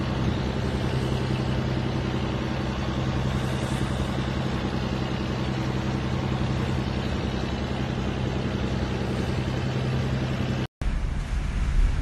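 An engine running steadily, a low hum under a dense hiss. About ten and a half seconds in the sound drops out for a moment, and a rougher rumble of wind buffeting the microphone follows.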